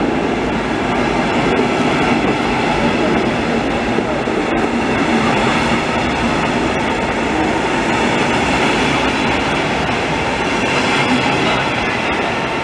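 Red DB Regio double-deck passenger coaches rolling past close by: a steady rumble of wheels on rail that holds at one level throughout. Near the end, as the cab car goes by, a faint high tone slides down slightly in pitch.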